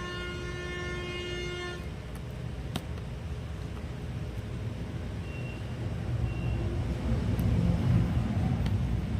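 A vehicle horn sounds one long steady note and stops about two seconds in. Low traffic rumble then builds, louder in the second half.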